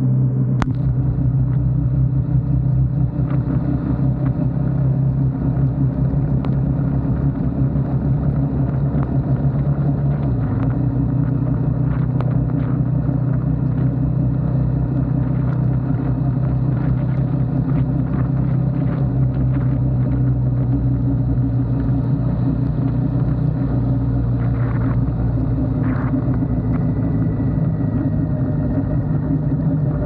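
Royal Enfield Himalayan 450's single-cylinder engine running at a steady cruise on a wet road, with tyre hiss and wind noise, and scattered ticks of raindrops hitting the camera.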